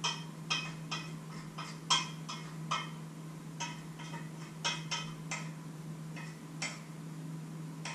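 A metal utensil clinking irregularly against a metal mixing bowl as food is stirred and mixed in it, about two sharp ringing clinks a second.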